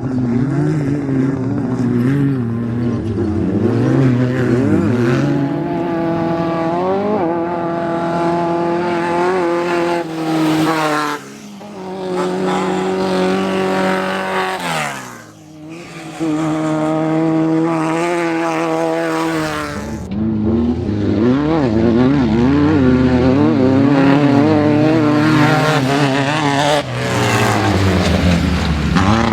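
Class 5-1600 off-road race car's air-cooled 1600cc Volkswagen engine at race speed, revving up through the gears in rising steps and dropping back between shifts. Near the middle the pitch falls away as it goes by, and the level dips briefly twice.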